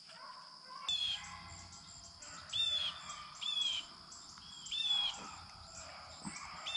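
A bird calling in woodland: about five short, harsh, arched calls, each under half a second, a second or two apart.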